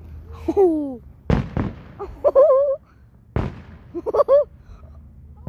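Aerial firework shells bursting overhead: three sharp booms, two close together about a second in and another past the middle. Excited voices exclaim between the bangs.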